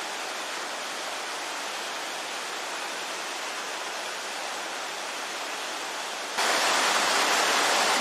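Waterfall of about 35 m crashing into a rock canyon: a steady rushing hiss of falling water that jumps abruptly louder about six seconds in.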